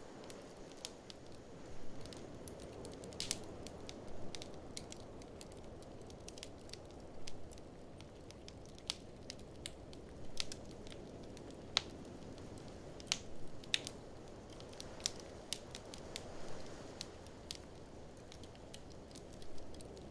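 Wood fire in an open fireplace crackling, with irregular sharp pops and snaps, some louder than others, over a steady low rush of blizzard wind.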